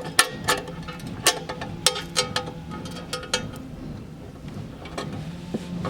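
Small metal lock parts (slider, faceplate and spacers of a V-Line Brute case lock) clicking and clinking as they are handled and fitted into place: a quick run of sharp clicks through the first three seconds or so, then only a few.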